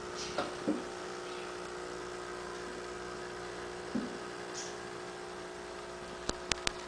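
Steady mechanical hum of aquarium equipment with a few fixed-pitch tones in it, a couple of soft thumps early on, and three sharp clicks in quick succession near the end.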